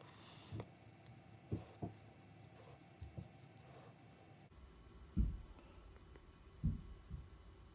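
Faint scratching and light ticks of a sanding stick rubbing the small hard-plastic LEGO helmet, with soft low knocks from handling. Two stronger thumps come in the second half.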